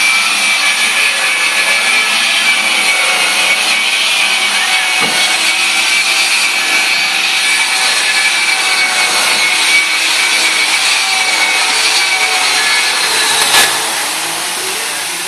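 Loud, steady machine whirring with a high whine over a hiss. There is a sharp click near the end, after which it runs a little quieter.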